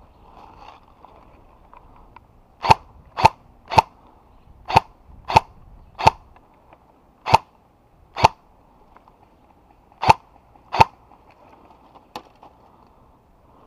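Compact M4-pattern airsoft PDW fired one shot at a time: about ten sharp pops in short, uneven strings, starting about two and a half seconds in, with a fainter pop near the end.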